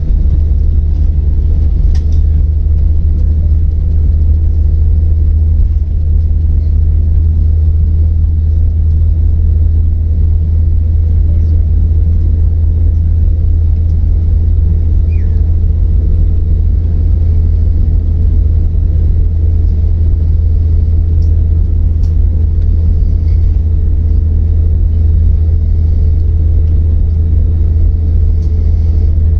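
Steady low rumble of an airliner's engines and airflow, heard from inside the passenger cabin.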